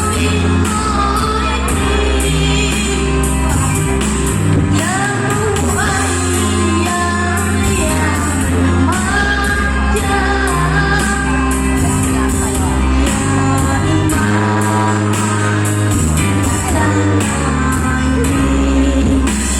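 A young girl singing sholawat, an Islamic devotional song, with sliding, ornamented notes over a backing track with bass and a steady beat.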